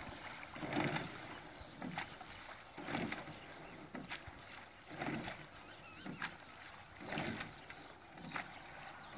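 Oars of a rowing boat working at a steady stroke, about one stroke every two seconds, each with a short knock and a swish.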